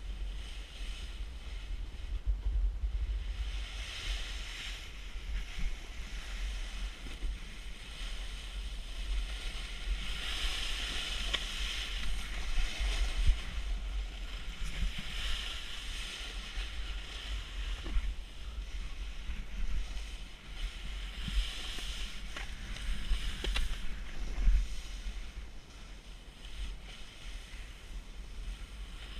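Snowboard sliding over snow, a hiss that swells and fades every few seconds, over a steady low rumble of wind buffeting a helmet-mounted camera's microphone.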